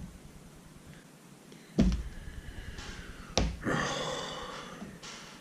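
Two sharp knocks about a second and a half apart, the second followed by a hissing, breathy noise that fades over about a second and a half.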